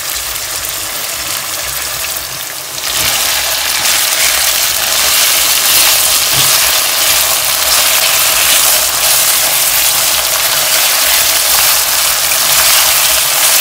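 Pieces of beef lung frying in hot vegetable oil in a pan: a loud, steady sizzle that grows louder about three seconds in.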